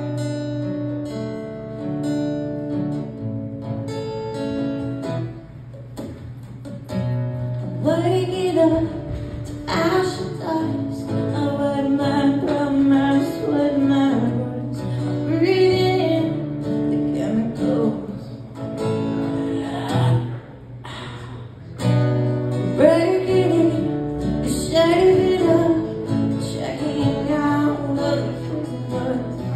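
Acoustic guitar played alone, then a woman starts singing along with it about eight seconds in: a solo singer accompanying herself on acoustic guitar.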